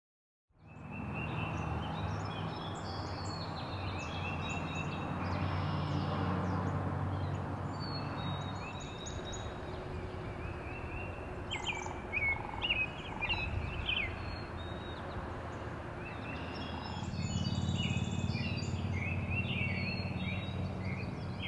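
Several wild birds singing and chirping over a steady low outdoor background rumble, with a flurry of louder chirps about halfway through.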